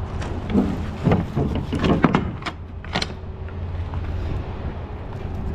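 Semi-truck's diesel engine running steadily at low revs, with a few short knocks and rattles in the first three seconds.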